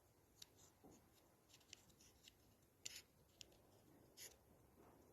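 Faint, scattered small clicks and rubbing of plastic parts being handled as a car window switch is pieced back together, the clearest clicks about three and four seconds in.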